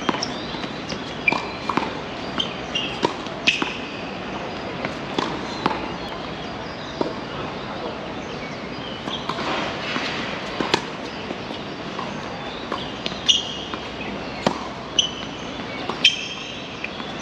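Tennis balls being struck by rackets and bouncing on the court: a string of sharp pops at irregular intervals, about one every half second to a second and a half, over a steady background murmur.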